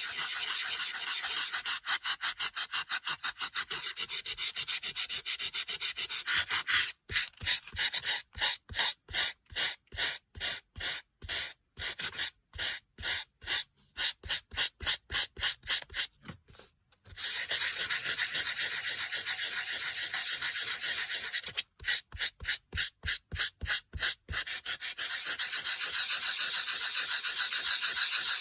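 A sanding block rubbed over dry-embossed white-core cardstock, a scratchy rasp that wears the colour off the raised design to show the white core. It comes as a steady rasp at first and then as quick back-and-forth strokes, about two a second, with a short stop partway through and a second run of strokes near the end.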